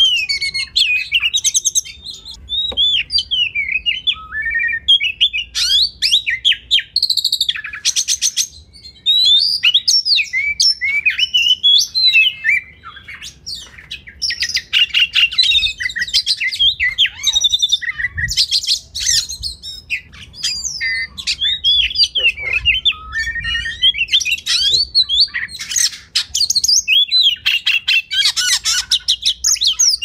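Oriental magpie-robin (kacer) singing without a break: a varied string of sliding, whistled phrases, broken several times by fast rattling trills.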